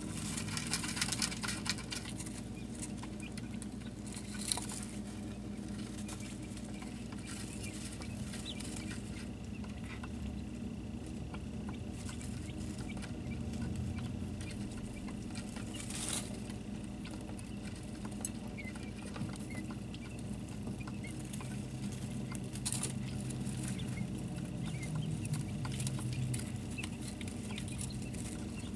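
Day-old quail chicks moving about: light pattering and scratching with a few sharper taps, and faint peeping, over a steady low hum.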